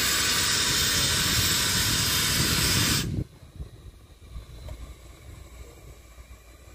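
Loud hiss of steam blowing out from low on the side of a small 110-year-old steam locomotive, cutting off abruptly about three seconds in.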